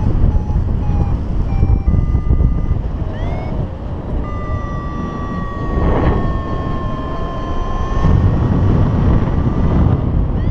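Wind rushing over the microphone in paraglider flight, with a variometer's electronic tones: short beeps in the first two seconds, then a long held tone from about four to eight seconds.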